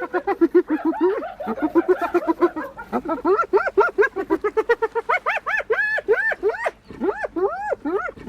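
Spotted hyena giggling: a rapid run of short, pitched whooping notes that rise and fall, the notes climbing higher and spacing out after about three seconds.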